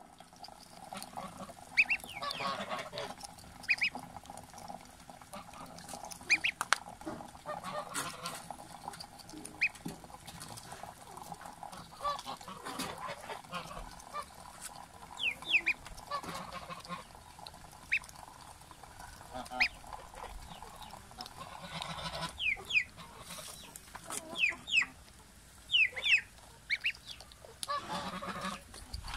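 Pekin ducklings peeping in scattered short, high, falling cheeps, with sharp clicks as their bills nibble at a cucumber.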